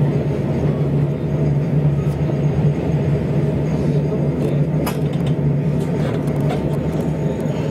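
Railcar running on the line, heard from inside the carriage: a steady rumble and hum. There is a sharp click about five seconds in and a few fainter ticks.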